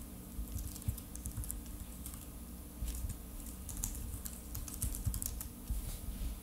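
Quiet, irregular clicks of typing on a keyboard: a web search being typed in.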